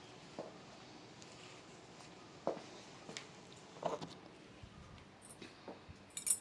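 Quiet room with a few faint, scattered clicks and knocks, ending in a sharper tick near the end.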